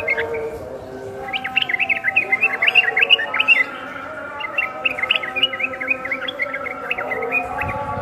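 Yellow-vented bulbul singing a fast run of bright, bubbling chirps that comes in two bursts, one about a second in and another about halfway through.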